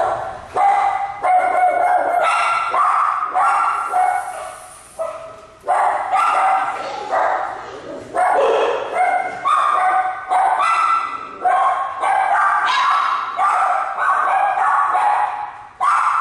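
Small dog barking and yipping over and over in a fast, unbroken series of high-pitched barks.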